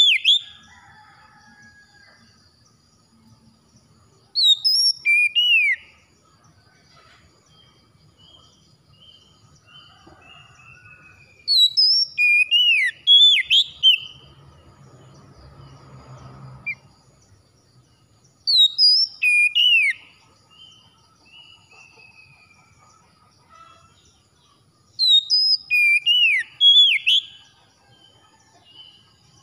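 Oriental magpie-robin singing: four loud bursts of sharp, sweeping whistled notes, roughly every seven seconds, each trailed by a quieter run of short falling notes.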